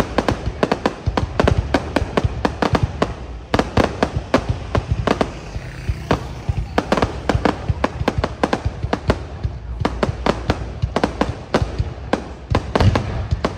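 Fireworks display going off: a dense, fast string of explosions, several bangs a second, with a low rumble beneath.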